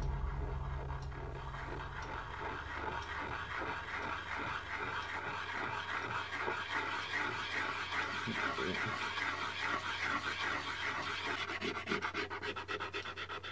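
Pencil scratching rapidly across paper in quick repeated shading strokes, which come faster and denser near the end, over a low steady hum.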